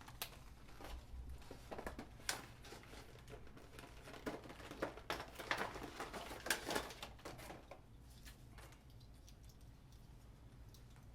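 Hands handling small parts: scattered light clicks and rustles, busiest for the first seven seconds or so, then quieter.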